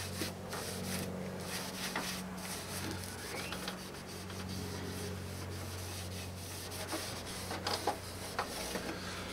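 Cloth shop rag, damp with carburetor cleaner, rubbing over a cloudy plastic headlight lens in irregular back-and-forth wiping strokes, polishing off the oxidation. A steady low hum runs underneath.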